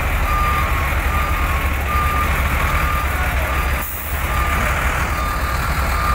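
A truck's reversing alarm sounds a repeating beep a little more than once a second, over the steady low rumble of the diesel engine as the tractor-trailer backs up.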